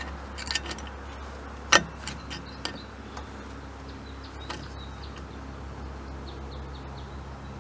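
Sharp metal clicks and taps of hand tools fitting a cotter pin through the castellated prop nut on an outboard's propeller shaft, the loudest about two seconds in, over a steady low hum.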